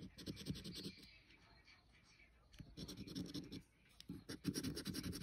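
A large coin-shaped scratcher rubbing the scratch-off coating from a paper scratchcard in three bouts of quick back-and-forth strokes, with short pauses between them.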